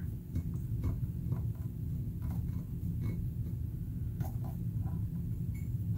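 Faint, irregular small metallic clicks and ticks of needle-nose pliers turning a small screw that fastens a power-amp module to an aluminium heat sink, over a steady low background hum.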